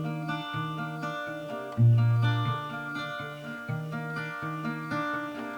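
Background music: acoustic guitar picking a steady, gentle melody over repeating bass notes.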